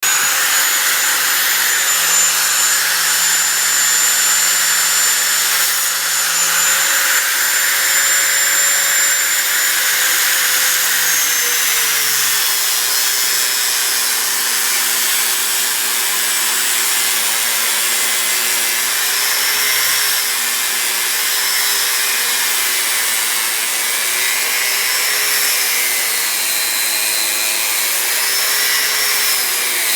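Angle grinder cutting through a steel bicycle U-lock: a loud, continuous high whine with harsh grinding noise. The motor's pitch drops about a third of the way in as the disc bites into the shackle, then sags and recovers again and again under the load of the cut.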